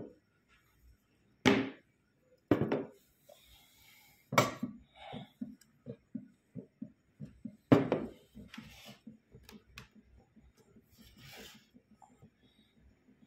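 Brannan metal-cased dial gauges handled and set down on a wooden tabletop: four sharp clunks, with a run of quick light clicks and rattles between them.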